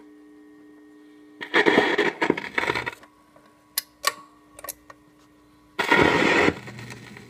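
A 1955 RCA 45 rpm record player's changer mechanism working after the music stops, over a steady low hum: a burst of mechanical clatter, then several sharp clicks, then a louder clatter near the end.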